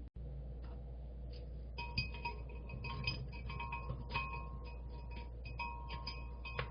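A spoon clinking repeatedly against a glass, as in stirring, starting about two seconds in; each strike rings briefly.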